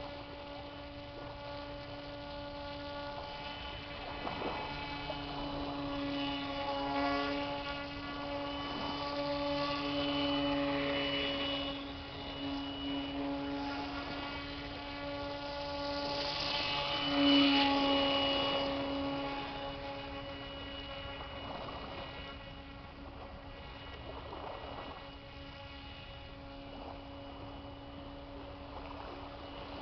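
Handmade RC airboat's motor and air propeller running with a steady pitched hum that grows louder as the boat passes nearer, loudest about seventeen seconds in, then fades as it moves away.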